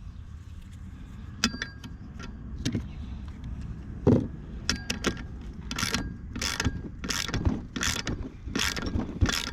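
Hand ratchet wrench clicking as a bolt is wound into a freshly fitted helicoil thread in an alloy cylinder head. A few separate tool clinks and a knock come first, then from about halfway the ratchet's strokes repeat about twice a second.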